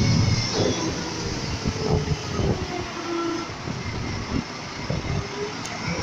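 Front-loader garbage truck running at idle with its hydraulics, while its lift forks work a steel commercial bin, giving irregular metal clanks and knocks over the engine's rumble.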